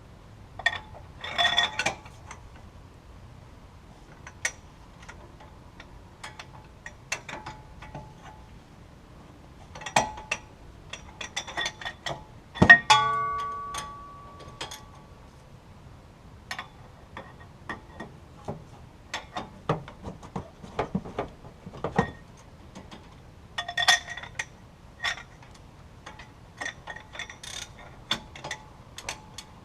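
Hand tools working on the wheel hub's bolts: irregular metallic clicks and clinks, with one loud metal clang about halfway through that rings briefly.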